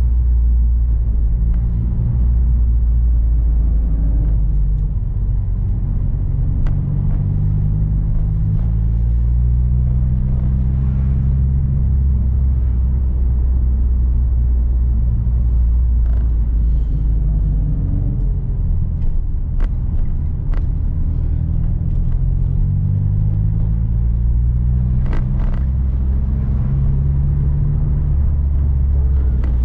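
Turbocharged Subaru flat-four engine heard from inside the cabin while driving, a low rumbling drone whose pitch climbs and drops several times as the car speeds up and eases off. A few short sharp clicks in the second half.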